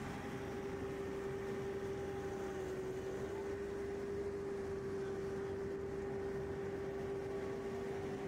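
Somero S-22EZ laser screed with a Broom+Cure attachment running steadily: a constant whine over an even machine noise.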